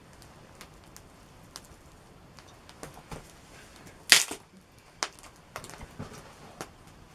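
Campfire crackling: irregular small pops and clicks, with one louder snap about four seconds in.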